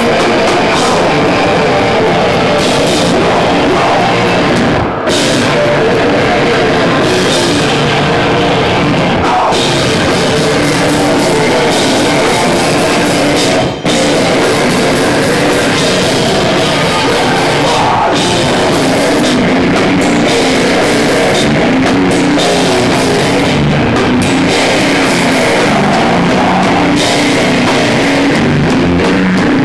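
A hardcore/doom band playing live and loud on drum kit and electric guitar. The wall of sound drops out for an instant twice, about five seconds in and again around fourteen seconds.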